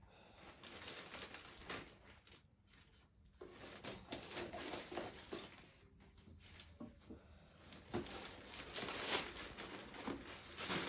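Black plastic courier mailer bag being torn open and handled, an irregular run of rustling, crinkling and small crackles, louder over the last few seconds as a hand reaches inside.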